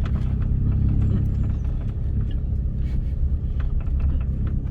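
Lowered Mini's engine running steadily at low revs as the car crawls over rough forest ground, with scattered knocks and rattles as it jolts over the bumps.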